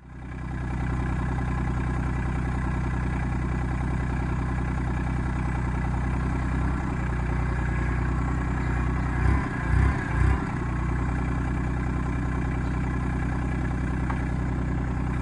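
Compact tractor's diesel engine running steadily at idle, with three short louder surges in its low rumble about nine to ten seconds in.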